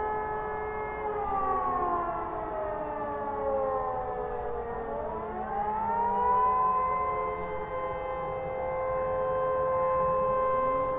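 Several distant electro-mechanical civil defence sirens sounding together in a test alarm, their tones overlapping at different pitches. Some wind down in long falling glides during the first half; about halfway through, one winds back up to a steady high tone, and near the end another begins to rise.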